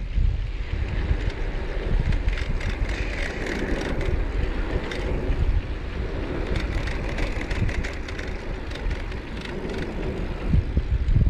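Wind buffeting the microphone over a steady rumble from riding along a rough trail, with scattered small knocks and rattles.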